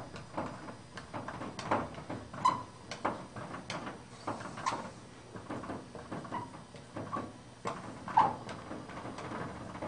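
Marker writing numbers on a whiteboard: a run of short, irregular strokes and brief squeaks.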